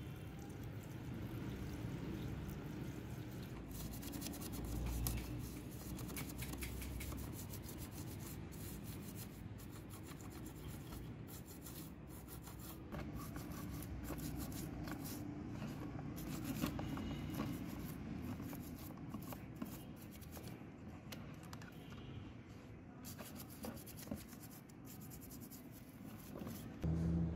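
A toothbrush scrubbing a wet metal cassette-deck mechanism: quick, repeated bristle strokes rasping over the chassis and gears.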